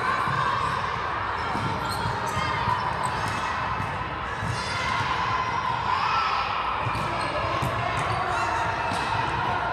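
Volleyballs struck and bouncing on a hardwood gym floor, short sharp smacks scattered through a steady din of echoing gym noise and players' voices in a large hall.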